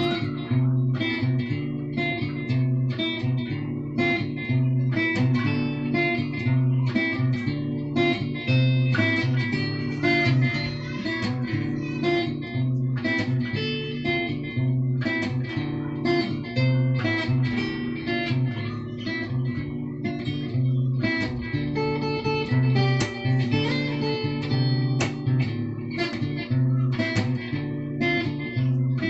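Acoustic-electric guitar fingerpicked in a steady pattern of ringing notes over repeating bass notes, played to test a newly fitted Prener PM-5 band pickup preamp.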